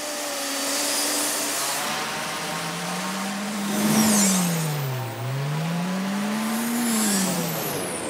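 Unmanned drone aircraft's engine whining as it flies past. Its pitch sinks to a low point about five seconds in, climbs again and then drops away near the end. It is loudest about four seconds in.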